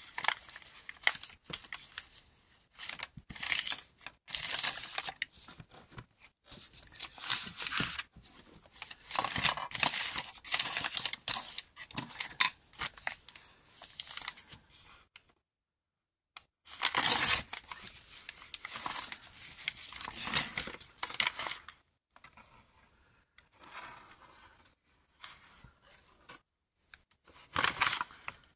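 Scrunched-up brown packing paper crinkling and rustling as it is handled, folded and pressed flat by hand, in irregular bursts with a short pause a little past halfway.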